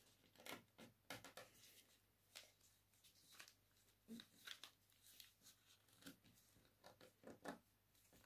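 A sheet of paper being folded and creased by hand: faint, irregular rustles and crinkles as fingers press and slide along the folds.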